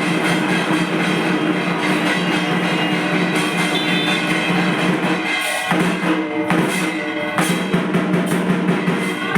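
Dhak drums played continuously in the fast, dense drumming that accompanies a Durga Puja aarti, with steady ringing tones held beneath the beats.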